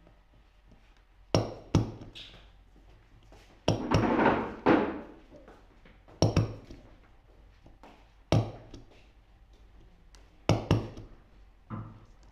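A stapler being pressed down again and again, driving staples in: a sharp clack every two seconds or so, often as a quick double click. About four seconds in there is a second-long scraping noise between two clacks.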